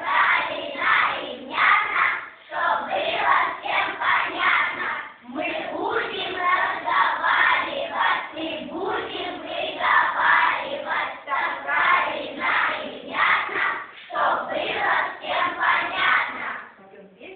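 A class of young children chanting together in unison, a rhythmic group recitation in several phrases with short pauses between them, stopping just before the end.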